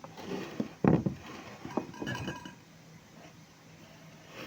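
Glass and dishware knocking and clinking on a table, with a short glassy ring about two seconds in: a drink being set out with the dishes.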